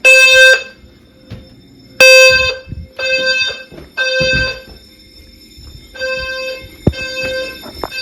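Fire alarm horn sounding the temporal-three evacuation pattern: three half-second blasts of a steady, buzzy tone a second apart, then a pause of about a second and a half, repeating. A single sharp knock is heard about seven seconds in.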